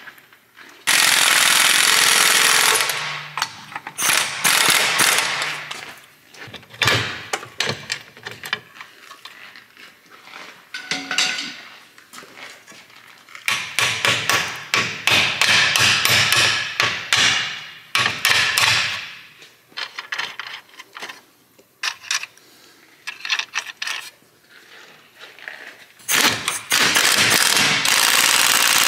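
Pneumatic impact wrench running in loud bursts of a second or more on the Saab 9-5's front axle nut and, near the end, on the lower suspension bolts. In between come sharp metal clinks and hammer taps on the front suspension.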